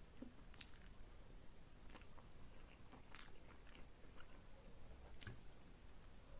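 Faint chewing and wet mouth sounds of someone eating Korean instant noodles, with a few soft clicks spaced a second or more apart.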